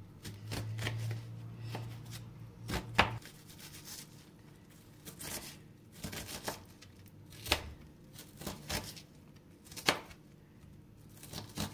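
Knife dicing onions on a cutting board: irregular sharp strikes of the blade on the board, roughly one a second, some louder than others.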